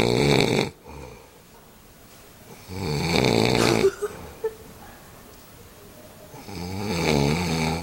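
Loud snoring in slow, regular breaths: three rasping snores about a second long, each about 3.5 to 4 seconds apart, the first ending just after the start.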